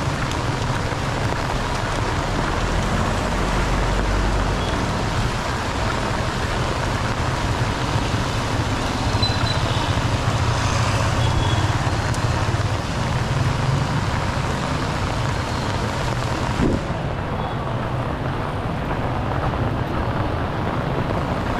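Heavy rain falling on a wet street, mixed with the rumble of motor traffic, tricycles and cars, passing on the wet road. Steady hiss throughout, turning duller abruptly about seventeen seconds in.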